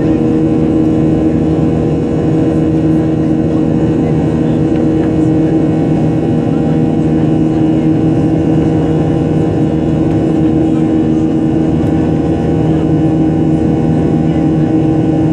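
Boeing 737-800's CFM56-7B jet engines heard from inside the passenger cabin: a loud, steady drone with several unchanging hum tones, holding the same pitch throughout.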